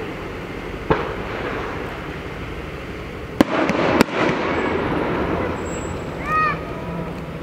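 Fireworks display: aerial shells bursting with sharp bangs, one about a second in, then two close together about three and a half and four seconds in, the last two the loudest.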